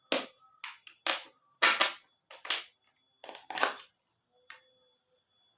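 A quick series of short, sharp rustles, about eight of them in the first four seconds or so, from a disposable face mask being handled and put on.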